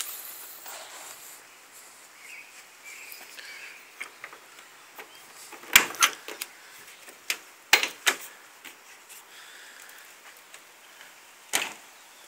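Metal latch and handle of a truck cap's side access door clicking and clunking as the door is worked open: a few sharp clicks about halfway through, two more about two seconds later, then one more knock near the end.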